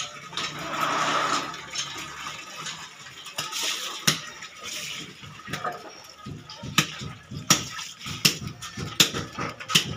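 Water poured from a dipper splashing over a cut blue marlin on wet concrete, then a large knife striking the fish's skin in regular strokes, about one every three-quarters of a second.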